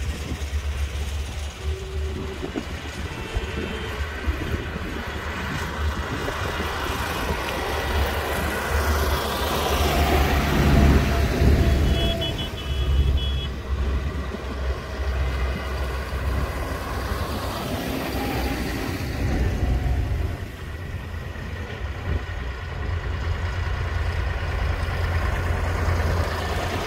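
Tractors driving past one after another, engines running with tyres on wet tarmac; the loudest pass comes about ten to twelve seconds in. A brief high beeping sounds just after it.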